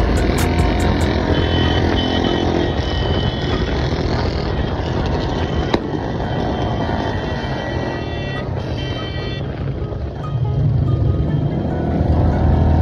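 Several Royal Enfield Bullet motorcycles riding in a group, their single-cylinder engines running steadily, with background music mixed over them.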